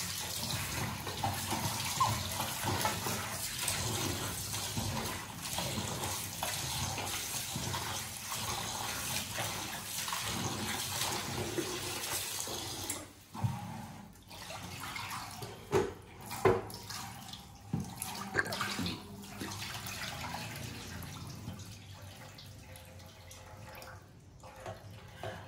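Tap water running into a steel bowl in a sink while raw chicken pieces are rubbed and washed by hand, with splashing. About halfway through, the steady flow gives way to intermittent sloshing and a few sharp knocks.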